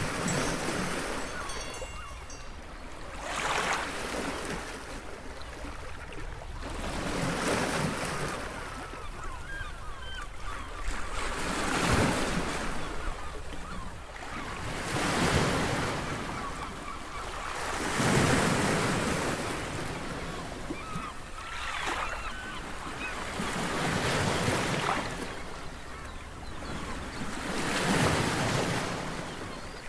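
Sea waves surging and breaking on the shore, a swell of surf about every three to four seconds, over a steady low rumble of wind on the microphone.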